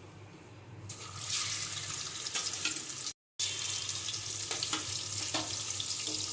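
Hilsa fish steaks sizzling in hot oil in a wok, the sizzle starting about a second in as the pieces go into the oil, with a few sharp pops. The sound drops out completely for a moment about three seconds in.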